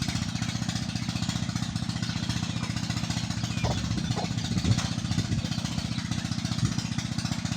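A small engine running steadily with a fast, even pulse, and a few short higher sounds a little past the middle.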